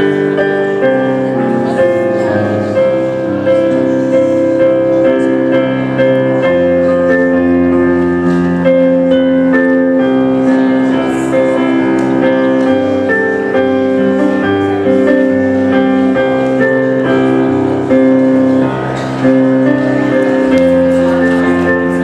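Slow instrumental music on a keyboard: sustained held chords that change every second or two, with a brief break about three-quarters of the way through.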